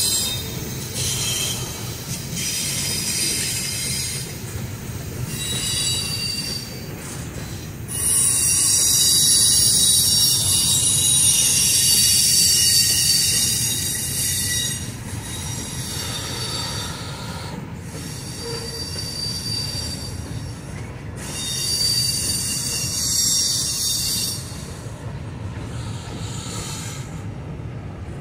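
CSX intermodal train's double-stack well cars rolling past with a steady low rumble, while metal wheels squeal high-pitched against the rails. The squeal comes and goes, loudest in a long stretch about a third of the way in and again briefly later.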